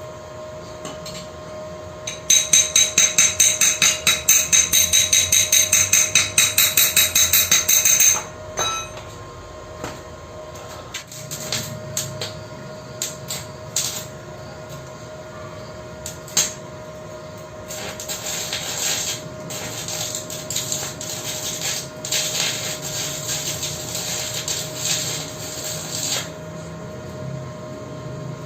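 Hammer rapidly striking steel, about four ringing blows a second for some six seconds, then scattered lighter taps and scraping on the metal part.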